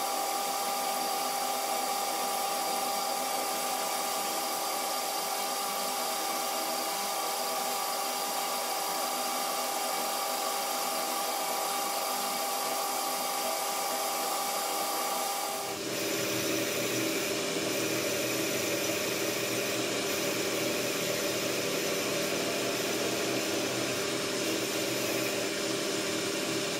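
Metal lathe running with a cast iron casting spinning in a four-jaw chuck, a steady machine whine made of several held tones. About two thirds of the way through the sound shifts suddenly to a lower, rougher set of tones.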